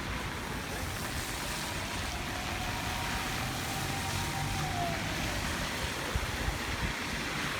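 Typhoon wind roaring steadily, with a faint wavering whistle running through it.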